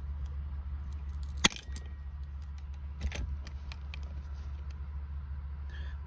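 Hand pop-rivet gun setting a rivet: a few faint ticks as the handle is worked, then one sharp snap about one and a half seconds in as the mandrel breaks off and the rivet is set, and a softer click near the middle. A steady low hum runs underneath.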